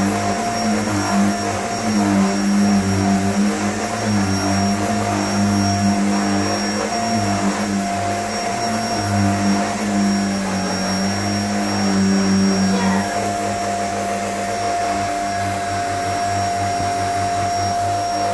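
Corded vacuum cleaner running continuously as a toddler pushes it over carpet. Its hum wavers as it is moved, then steadies about thirteen seconds in.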